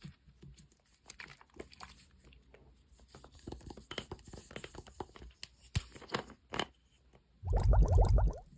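Soft crinkling, tearing-like rustles and small clicks of a squishy toy being handled and pressed. Near the end comes a loud, pitched, wavering sound about a second long.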